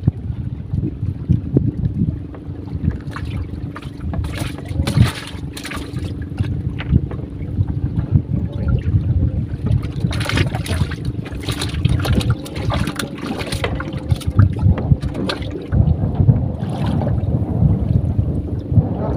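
Wind buffeting the microphone outdoors: an uneven low rumble with a steady hum under it, and a few longer gusts of hiss.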